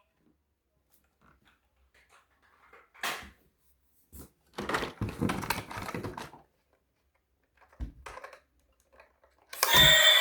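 Scattered clicks, taps and light knocks of small objects being handled at close range, in a few short clusters with quiet between them.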